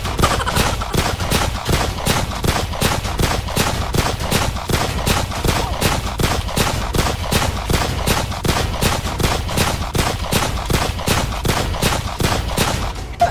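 Rapid, unbroken gunfire, about four shots a second, like an automatic weapon firing a long burst, with one louder shot at the very end.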